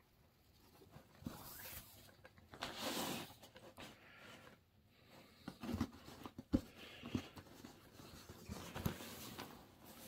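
Nylon paracord being handled and slid through loops on a plywood board: soft rustling and scraping of cord and hands, with a few light taps about six to seven seconds in.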